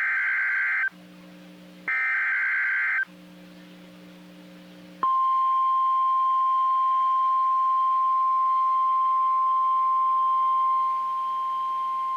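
NOAA Weather Radio Emergency Alert System alert: the last two of the three SAME header data bursts, short buzzy warbling screeches about a second apart. About five seconds in, the steady 1050 Hz weather radio warning alarm tone begins and holds. Together they herald a newly issued warning, here a severe thunderstorm warning.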